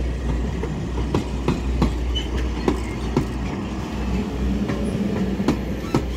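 Railroad passenger coaches rolling past at close range: irregular wheel clacks, as over rail joints, over a steady low rumble.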